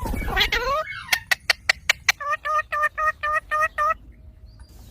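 Ringneck parrot calling: a harsh squawk with a falling pitch, then a quick run of sharp clicks, then a string of about seven short, even-pitched calls.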